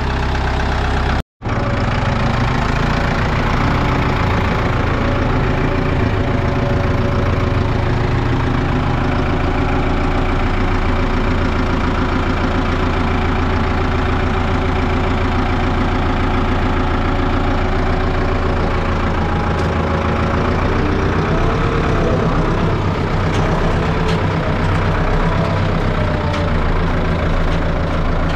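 Ford tractor engine running steadily while the tractor is put in gear and driven, heard from the driver's seat. The sound cuts out for an instant about a second in.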